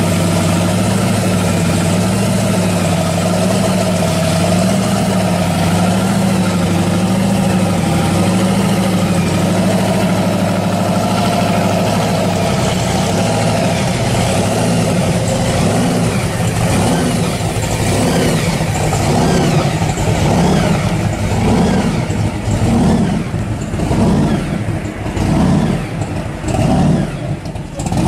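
Supercharged, fuel-injected V8 of a 1957 Chevy pro street car idling unevenly. About halfway through it starts taking a string of short throttle blips, roughly one a second.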